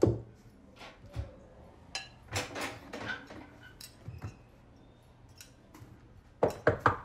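Cutlery and a plate knocking, clinking and scraping on a wooden table as a man eats pasta, with a cluster of louder knocks near the end.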